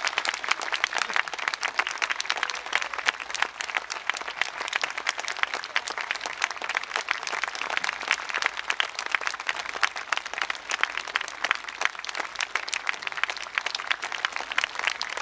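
Audience applauding: steady, dense clapping with no music.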